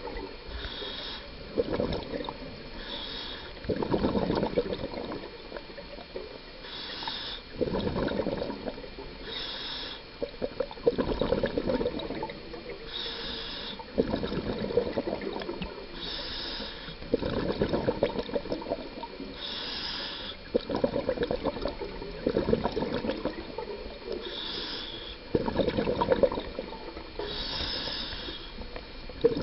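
Scuba diver breathing through a regulator underwater: a short hiss on each inhalation, then a longer gurgling rush of exhaled bubbles, repeating every three to four seconds.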